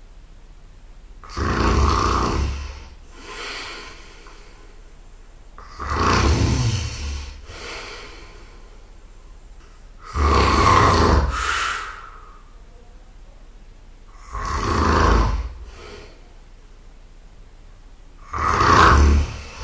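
A person snoring very loud in deep sleep: five rough snores about four seconds apart, each followed by a softer breath out.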